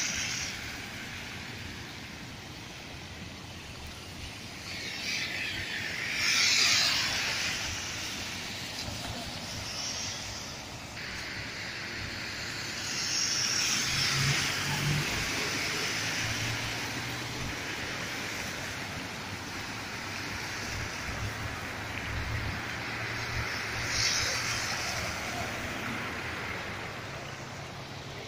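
Cars driving along a flooded street, their tyres swishing through standing floodwater over a steady wash of water noise. Passes swell about six seconds in, around thirteen to fifteen seconds in, and about twenty-four seconds in, with an engine's low hum through the middle stretch.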